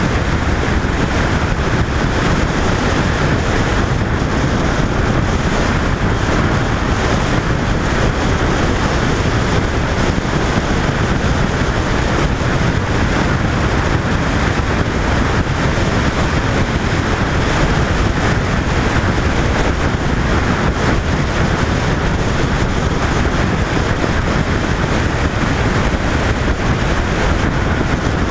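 Steady wind rush on the microphone of a camera mounted on a moving motorcycle at road speed, an even roar heaviest in the low end, with the bike's own running noise lost in it.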